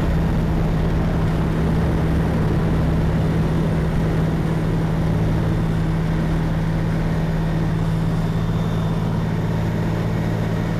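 Light aircraft's piston engine and propeller at full throttle on the takeoff roll: a steady, loud drone with a strong low hum.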